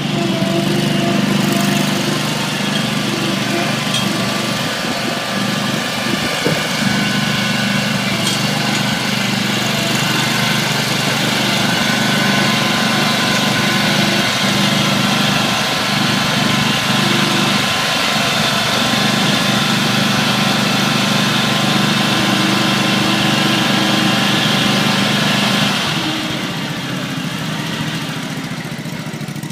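Riding lawn mower engine running steadily at an even speed. About 26 seconds in it becomes somewhat quieter.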